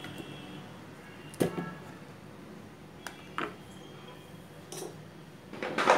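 A few sharp clinks and knocks of a mixer-grinder jar and utensils against a steel bowl as the ground urad dal batter is emptied out. The loudest comes about one and a half seconds in, with lighter ones after it and a cluster near the end.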